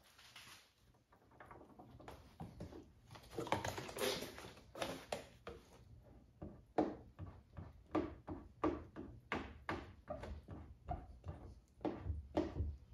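Handheld squeegee rubbing over wet paint protection film in short quick strokes, about three a second in the second half, with longer swishes earlier, as water is worked out from under the film.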